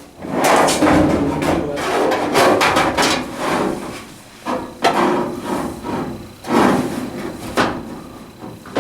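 Irregular clunks, knocks and scraping as a Whirlpool Estate dryer's sheet-metal drum is worked back into the cabinet, a tight fit.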